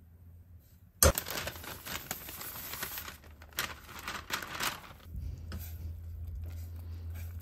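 A sharp clunk about a second in, then baking paper crinkling as flour is tipped from it into a stainless steel saucepan of hot melted butter. Near the end a silicone spatula stirs the flour in, working against the pan.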